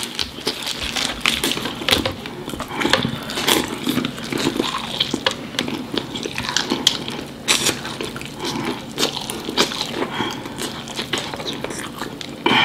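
Crispy breaded fried chicken being bitten and chewed, the crust crunching and crackling in an irregular stream of small clicks.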